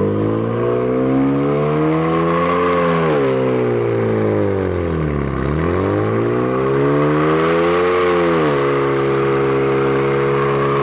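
A car engine being revved hard. Its pitch climbs, falls to a low point about five seconds in, climbs again, then drops back and holds steady from about eight and a half seconds.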